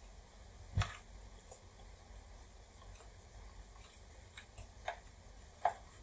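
Metal pick prying and scraping at a power adapter's metal shield and casing: a sharp click about a second in, then a few smaller clicks near the end.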